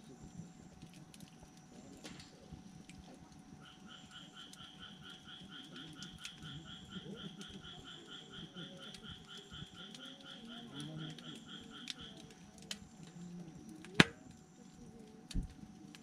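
Wood campfire crackling faintly, with one sharp, loud pop about fourteen seconds in. From about four seconds to about twelve seconds a rapid, evenly pulsed trill sounds alongside it.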